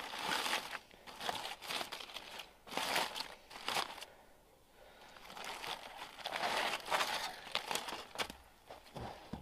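Aluminium foil crinkling and tearing as it is pulled open by hand from a piece of roasted beef, in irregular bursts with a short lull about four seconds in.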